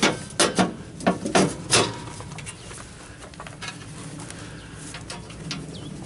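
About six sharp metallic clicks and knocks in quick succession over the first two seconds, from hands and tools working on wiring in an open electric meter and breaker panel, then only faint ticks.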